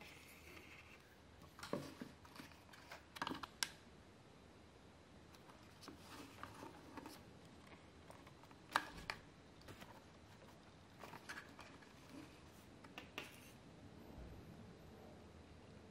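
Faint, irregular clicks and taps from handling a small plastic RC helicopter and FPV goggles, over quiet room tone, with no rotor or motor running.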